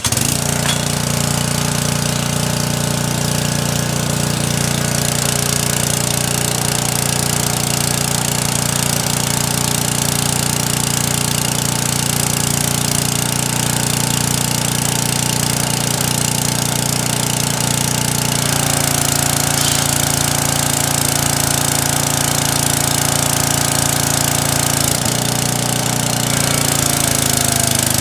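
Briggs & Stratton engine on a pressure washer starting at once and running steadily under load, with a loud hiss from the water spray. It holds its speed without surging now that the carburetor's float needle and seat have been replaced. The engine note shifts slightly about two-thirds of the way in.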